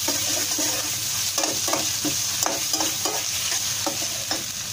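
Onions and green capsicum sizzling steadily in hot oil in a kadai, while a metal slotted spatula stirs them and scrapes and clinks against the pan in quick, irregular strokes, several a second.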